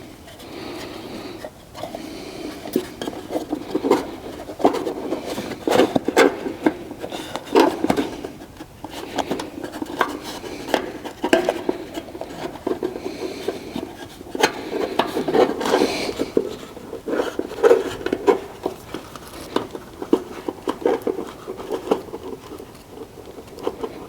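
Hand work on hard parts: irregular clinking and knocking, many small knocks close together, mixed with rubbing and scraping.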